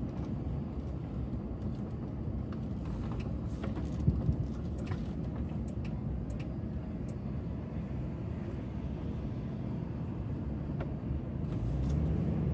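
Vehicle running at low speed, a steady low rumble of engine and tyres heard from inside the cab. A couple of brief knocks come about four seconds in, and the rumble grows a little louder near the end.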